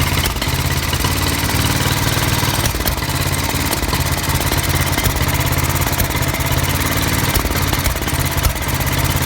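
Norton 500T single-cylinder four-stroke engine running, with a few sharp pops cutting through, the loudest about eight and a half seconds in. These are the carburettor misfire and backfires of its Amal carburettor.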